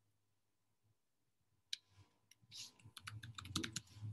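Faint computer keyboard typing: one click a little under two seconds in, then a quick run of key clicks through the last second and a half.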